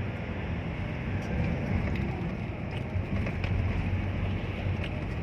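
Steady road and engine noise of a moving car, heard from inside the cabin, with a low rumble.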